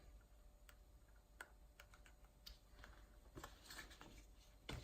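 Faint, scattered small clicks and rustles of hand-sewing: a needle and thread being worked and pulled tight around a corner. A slightly louder tap comes near the end.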